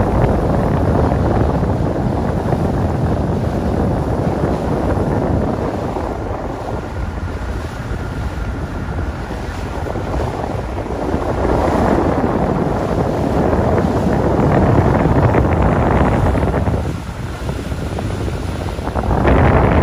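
Wind buffeting the microphone on a moving boat, swelling and easing in gusts, over the boat's motor and water rushing past the hull.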